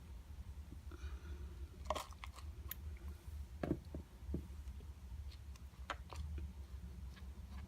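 Scattered clicks and short crunches of hard plastic being handled and snipped, a few sharp ones close together about two seconds in and more spread through the rest.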